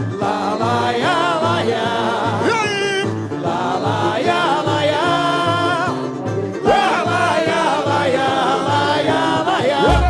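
Samba-enredo performed live: a lead singer with vibrato over a samba school drum section, whose low bass drum keeps a steady beat about twice a second.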